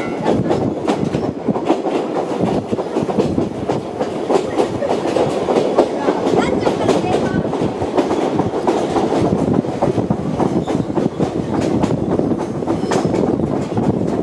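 Open-air trolley train running along the track: a steady rumble of wheels on rails with rapid, dense clacking.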